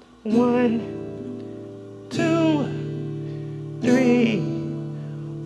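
Slow counting song: a voice sings one drawn-out number roughly every two seconds, each over a strummed acoustic guitar chord that rings on until the next.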